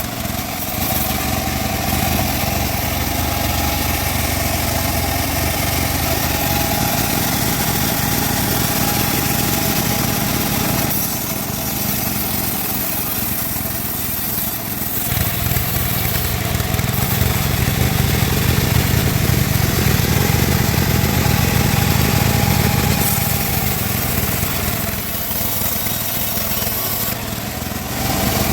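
Engine-driven band sawmill running steadily, with a constant whine over a low engine rumble; the rumble grows heavier and louder for several seconds in the middle, then eases off.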